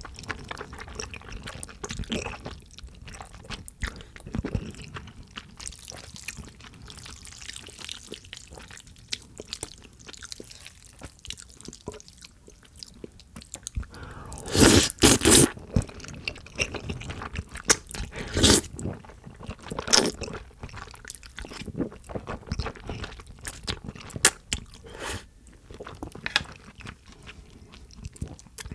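Close-miked eating sounds: slurping jajangmyeon noodles coated in black bean sauce and wet chewing, with many short sharp clicks. The loudest is a long slurp about fifteen seconds in.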